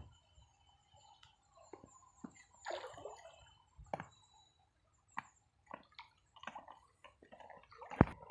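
Soft squelches and scattered sharp clicks from a stick being pushed into wet mud and bare feet shifting on the muddy bank. There is a short scraping rustle about three seconds in and one loud click near the end.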